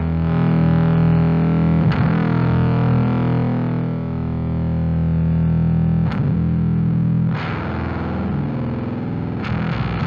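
Bass played through a Fender Blender octave fuzz pedal: fuzzy, distorted notes struck and left to sustain, with new notes picked about every couple of seconds.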